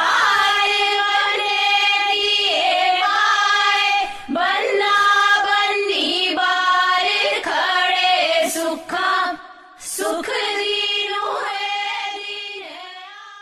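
A song with a high voice singing a slow melody in long held, bending notes, fading out near the end.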